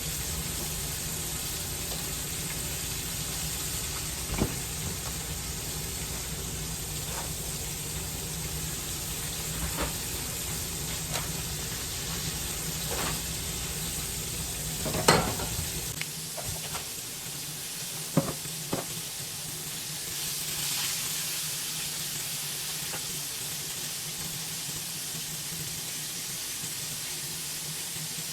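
Pork steaks frying in grease in a pan, a steady sizzle throughout. Several sharp clicks and knocks of a utensil against the pan are heard, the loudest about halfway through. A low hum underneath stops about halfway through.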